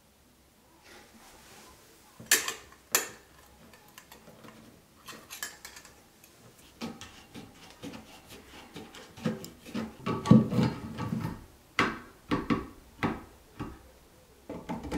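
Chrome-plated sink drain pipe and bottle trap fittings being handled and fitted: irregular metallic clicks, clinks and knocks as a ring goes onto the tailpipe and the pipe is pushed into the basin outlet, with a wrench on the drain nut near the end. Two sharp clicks come a few seconds in, and the clinking is busiest toward the end.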